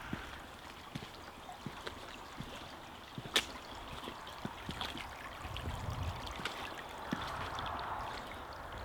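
A small stream running steadily, with scattered light clicks and one sharp click about three and a half seconds in.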